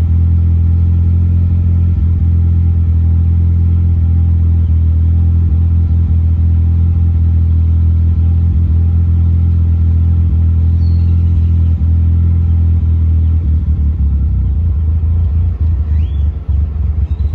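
Car engine idling rough with a misfire: a steady low running note that turns uneven and stumbling, dipping in level again and again over the last few seconds.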